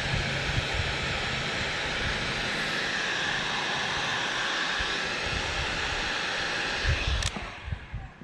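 Electric heat gun running with a steady blowing hiss while heating wire joints, cut off about seven seconds in with a click.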